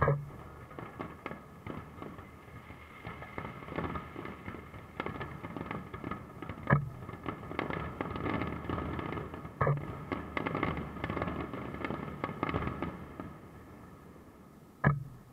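Aerial fireworks: a dense stream of crackling and popping shell bursts, with four heavy booms standing out, one at the very start and the last near the end after the crackling has died down.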